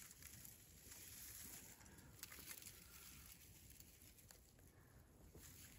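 Near silence: faint background hiss with a few soft, scattered ticks.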